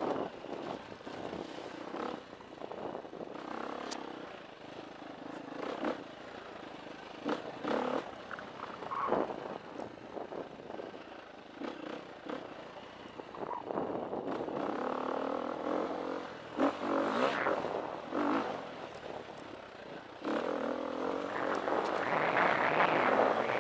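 KTM 350 EXC dirt bike's single-cylinder four-stroke engine running at changing throttle along a rough trail, with knocks and clatter from the bike over bumps. The engine pulls harder and louder over the last few seconds.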